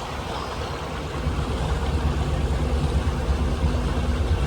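Boat engine idling at low speed, a steady low hum that grows louder about a second in.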